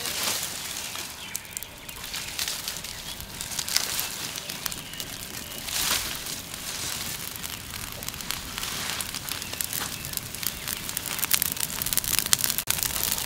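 Dry palm fronds and sticks burning with a dense crackle, which grows thicker near the end. Rustling swells at the start and about six seconds in as more dry fronds are heaped onto the fire.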